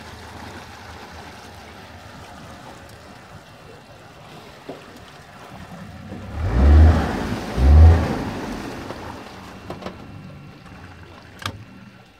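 Speedboat's hull nosing into a grassy bank, with a steady low rumble of water and boat. Two heavy low thumps come a little over a second apart, about two-thirds of the way through, and a sharp click comes near the end.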